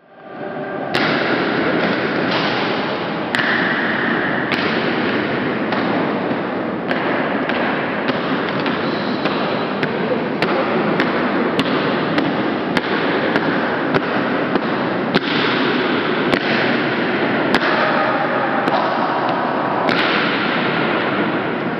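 Soldiers' boots marching on a stone floor, a dense run of thuds and scuffs echoing under a vaulted ceiling, with a steady hiss beneath.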